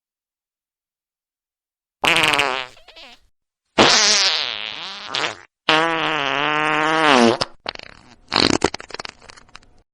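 Four fart sounds in a row after about two seconds of silence. The second falls in pitch, the third is long with a wavering pitch, and the last breaks up into a sputter of short crackles.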